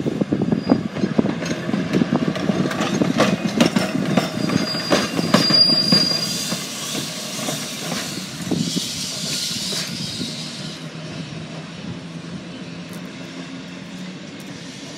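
CTA 3142 electric streetcar pulling away, its steel wheels clacking over the rail joints. A brief high wheel squeal comes about five seconds in, and the sound fades as the car moves off.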